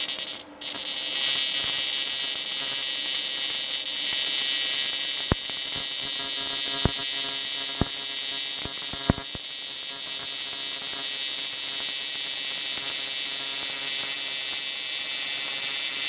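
Stick welding arc from a Prime Weld TIG 225X burning a 6013 rod on AC, a steady buzzing hiss. The arc dips out briefly about half a second in, and a few sharp pops come through the middle.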